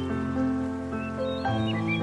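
Slow instrumental music of long held chords, moving to a new chord about one and a half seconds in, with a few short bird chirps over it.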